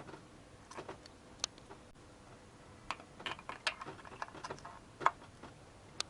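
Scattered light clicks and taps, about eight to ten of them at irregular intervals, from new hydraulic valve lifters being set into their bores in the cylinder head and handled.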